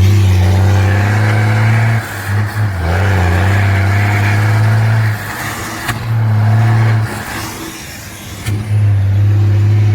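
Truck diesel engine through a straight-pipe exhaust, giving a loud, steady drone that breaks off and comes back several times.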